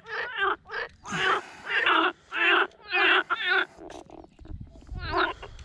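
Frogs croaking in a chorus, one short call after another about twice a second. A low rumble joins in over the last second and a half.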